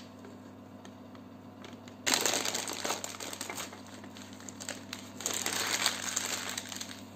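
Plastic piping bag crinkling loudly as it is handled, twisted and squeezed to push the cream down toward the nozzle, starting about two seconds in after a few faint taps.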